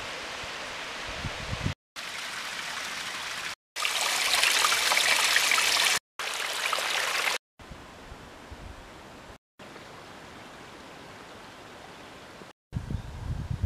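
Small mountain stream trickling and splashing over mossy rocks, a steady hiss of running water, cut into several short pieces with brief silences between; it is loudest about four to six seconds in and fainter in the later pieces.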